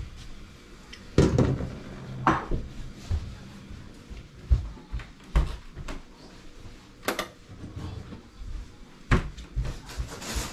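Irregular knocks and clatters of kitchen handling: dishes and a teacup being picked up and set down, about half a dozen sharp knocks a second or two apart.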